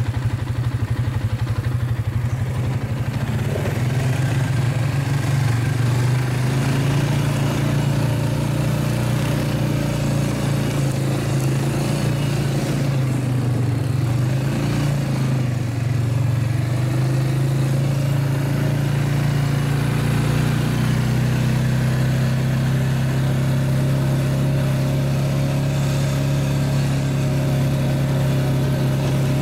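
All-terrain vehicle (quad) engine running steadily while being ridden, its pitch dipping and climbing again briefly around the middle.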